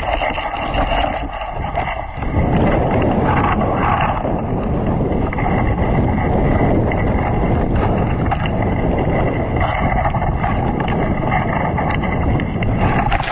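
Dog sled moving over snow: a steady rush of the runners and wind on the microphone, with many small knocks and rattles from the sled frame. It gets louder about two seconds in.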